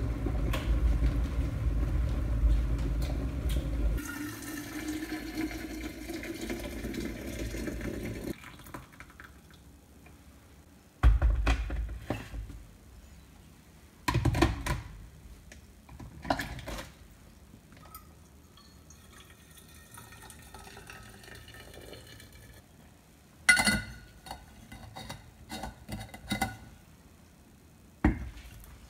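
Water pouring into a bottle for about eight seconds, its tone rising as the bottle fills, then stopping. Several sharp knocks and clunks follow as the containers and lid are handled.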